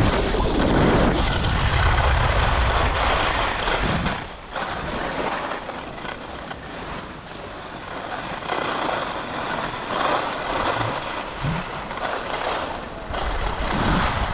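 Skis scraping and sliding over the snow of a race course while side-slipping, a continuous gritty hiss that fades briefly about four seconds in and swells again later, with wind buffeting the microphone.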